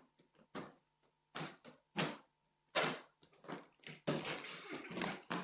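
Footsteps and shoe scuffs of people jogging on a wooden sports-hall floor. They come as a run of short, irregular thuds and scuffs, a few a second, bunching closer together about four seconds in.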